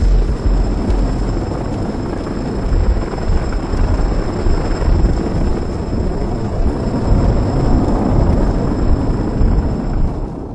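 Loud, steady low rumbling roar with a fluttering texture, beginning to fade near the end.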